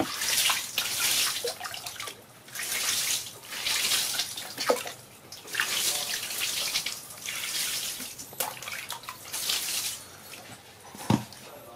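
Water poured from a plastic bowl over a baby monkey, splashing onto the mat and into the basin in repeated bursts of about a second each. There is a single sharp knock near the end.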